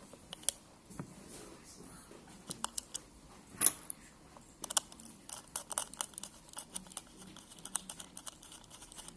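Scattered small clicks and taps of a screwdriver and the plastic casing of a WP6 Bluetooth speaker as it is closed and screwed back together, with one sharper click a little under four seconds in.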